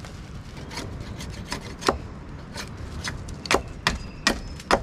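Wood being cut on a flat wooden chopping board: a series of sharp, irregular knocks, louder and closer together in the second half.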